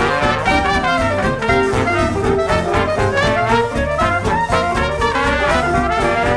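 Background jazz music led by brass horns over a steady beat.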